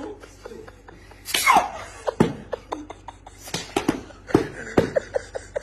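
A sandal being swung and snapped quickly by hand, giving a string of sharp slaps and smacks at uneven intervals, mixed with sudden bursts of laughter.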